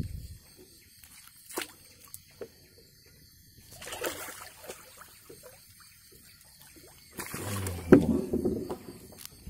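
Water splashing as a hooked giant snakehead (toman) thrashes at the surface and is scooped up in a landing net. There is a short splash about four seconds in, and the loudest, longest splashing comes from about seven to nine seconds in, as the fish is lifted in the net.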